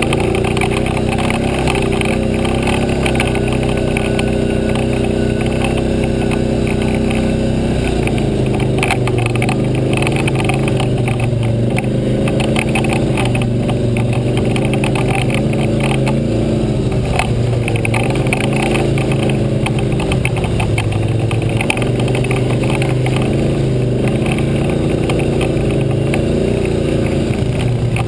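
ATV engine running while riding a rough dirt trail, steady at first and then rising and falling in pitch with the throttle from about a third of the way in, with frequent knocks and rattles from the bumpy ground.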